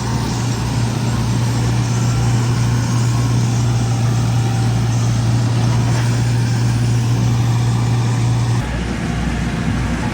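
Heavy farm machinery running steadily, a deep even engine hum with a pulsing beat beneath it. The sound shifts abruptly near the end.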